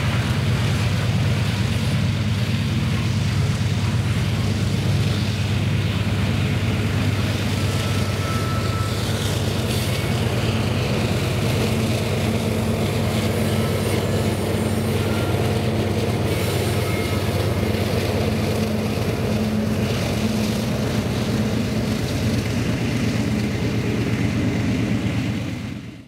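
Loaded coal hopper cars rolling past steadily with a low rumble of wheels on rail. From about halfway, a GE AC4400CW diesel locomotive pushing at the rear of the train comes by and its engine adds a steady low drone. The sound fades out quickly at the very end.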